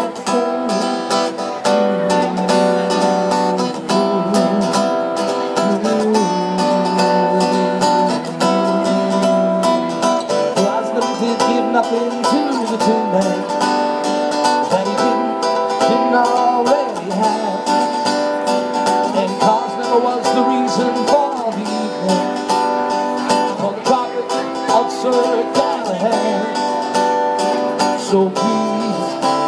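Live acoustic guitar music: strummed and picked chords ringing on, with a sliding melody line over them at times.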